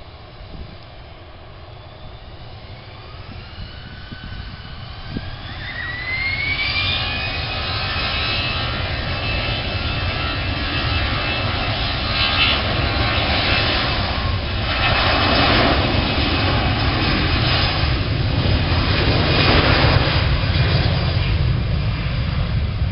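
Twin jet engines of a US Airways Airbus A320-family airliner spooling up to takeoff thrust. A whine rises in pitch over a few seconds, then gives way to a steady roar with a deep rumble that keeps getting louder as the jet accelerates down the runway.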